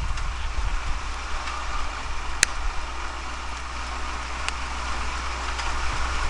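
1976 Oldsmobile Cutlass engine running steadily at idle, not revving, with a sharp click about two and a half seconds in.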